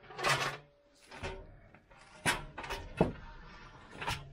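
A few short knocks and clicks from hands working at wires and clamps in a truck's engine bay.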